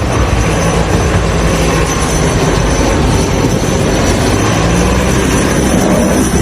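Loud, steady vehicle noise: a low engine-like hum under a wide, even hiss.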